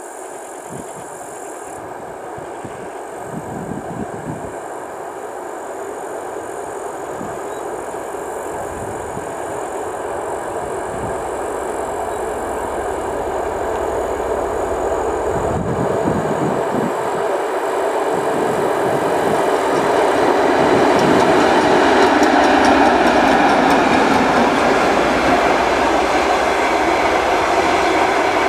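TEP70 diesel locomotive hauling a passenger train as it approaches, its diesel engine and the rumble of wheels on the rails growing steadily louder and peaking about three quarters of the way through.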